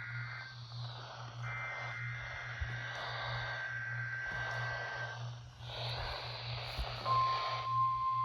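NOAA Weather Radio's SAME digital header, warbling data tones near 1.5 and 2 kHz, repeated in bursts over hissy radio reception with a low mains hum. About seven seconds in, a steady single tone near 1 kHz comes in and holds.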